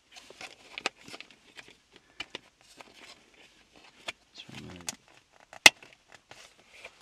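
Plastic dashboard trim panel being handled and fitted, with scattered light clicks and taps and one sharp plastic click about two-thirds of the way through.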